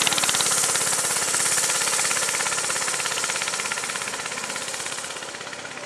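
Small gas engine of a Smart off-road go-kart running with a rapid, even firing beat, fading steadily as the kart drives away.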